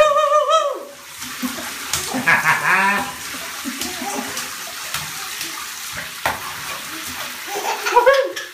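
A baby squealing and laughing in the bath, with bath water splashing and lapping around her. High squeals come at the start, again about two seconds in, and near the end.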